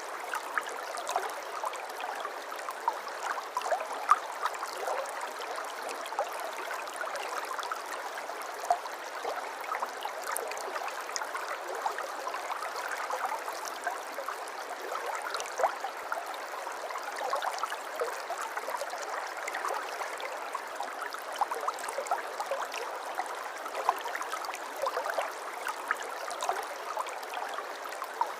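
A small river or stream flowing over stones: a steady rush of water full of small splashes and bubbling.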